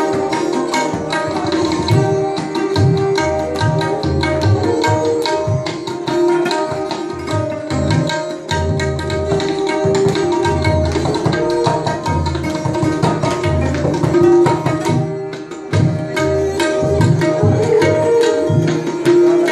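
Tabla played in a quick, steady stream of strokes, with a taus and a rebab holding melody notes behind it. There is a brief drop in the playing about fifteen seconds in.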